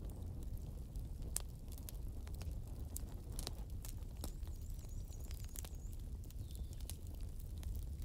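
Wood campfire crackling: irregular sharp pops and snaps from the burning logs over a low, steady rumble.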